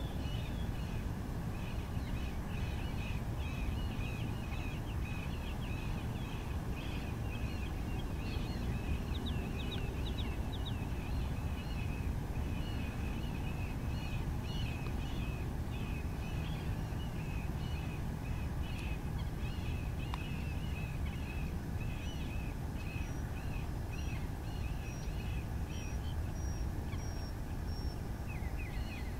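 Birds calling over and over in short chirps, against a steady low rumble.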